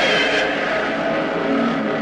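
Baragon's roar, a kaiju monster-roar sound effect: one long, loud roar, noisy and gritty with shifting pitched tones through it.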